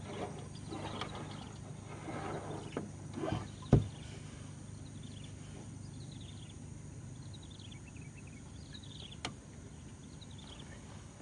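Fishing gear being handled in a wooden boat: rustling and scraping, with a sharp knock on the hull about four seconds in and a lighter one near the end. In the middle a bird calls a run of short falling notes.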